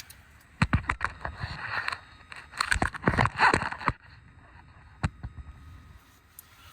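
Hand tools clicking and rattling on metal while the positive cable terminal is undone from a truck's starter. Several short bursts of sharp clicks come in the first four seconds, with the busiest stretch a little past halfway through them, then a single click about five seconds in.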